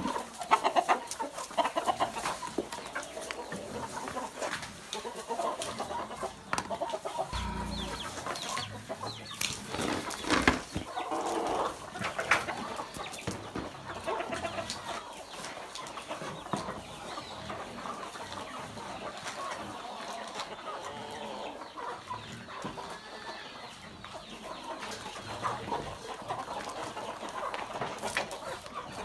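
A flock of free-range chickens clucking and calling continuously, many birds at once, with scattered short knocks and a few louder squawks.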